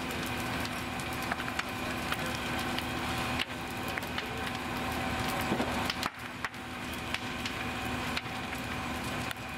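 Burning wood of a fully involved house fire crackling, with sharp snaps and pops scattered throughout. Under it runs the steady drone of a fire engine's motor working its pump.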